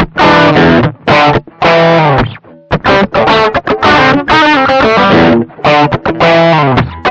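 1983 Aria Pro II electric guitar played through a Caline Orange Burst overdrive pedal, a BB Preamp clone, with a Joyo California amp simulator after it. Driven chords are struck in short stabs, each cut off sharply before the next.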